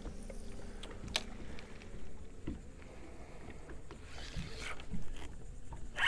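Water lapping against a small boat's hull with wind noise, a faint hum that fades out about two and a half seconds in, and a single sharp click about a second in.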